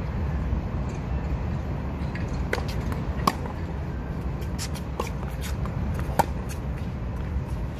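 Tennis rally on a hard court: sharp pops of the ball struck by rackets and bouncing, several over the stretch, the loudest twice, a little under halfway and again near the end. A steady low rumble of wind or distant traffic runs underneath.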